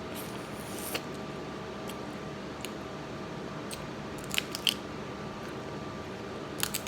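Crab shells being cracked and picked apart while eating: a few sharp snapping clicks, the loudest cluster about four and a half seconds in, over a steady hum.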